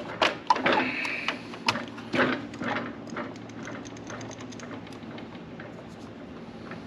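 Sharp clicks, knocks and rattling of small parts being handled as a table saw's built-in circuit breaker is worked out of its switch box. A run of quick light ticks follows about three to five seconds in, then it quietens.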